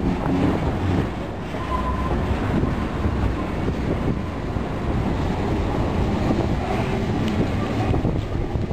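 Union Pacific freight cars, tank cars and boxcars, rolling past close by: a steady rumble of steel wheels on the rails.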